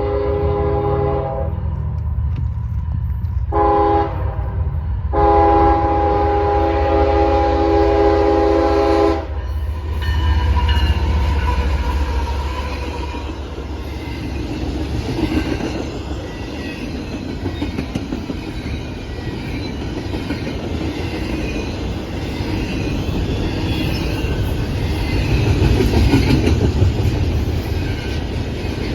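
Freight diesel locomotive horn sounding for a grade crossing: a blast ending about a second and a half in, a short blast near four seconds, then a long blast that stops about nine seconds in. The intermodal train then rolls past in a steady heavy rumble with rattling wheels and cars, growing louder toward the end.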